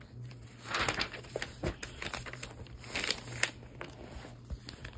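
Paper rustling and crinkling as the pages of a magazine are handled and turned, in a few short bursts with light clicks between.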